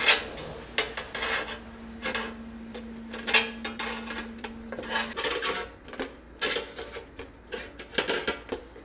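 Hand-held five-blade duct crimper squeezing the end of a galvanized steel round duct, one crunching metal squeeze about every second as it works around the rim. It is crimping the plain end smaller so the next duct section fits over it.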